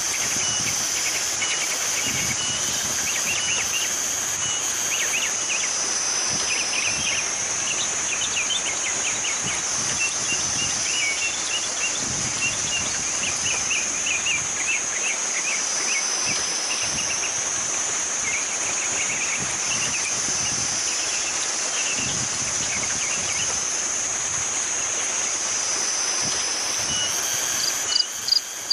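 Insects calling: a steady high-pitched buzz that slowly swells and fades every few seconds, with short rapid chirping trills under it.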